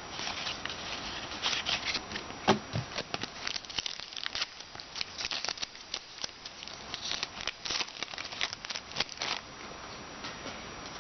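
Trading cards being handled and flipped through one after another, a run of quick light flicks and rustles, with a single sharper tap about two and a half seconds in.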